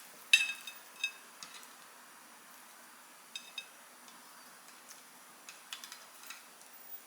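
Light clicks and taps of a utensil against dishware as cucumber slices are laid onto udon noodles in a bowl: a sharp tick just after the start, then scattered quieter ticks.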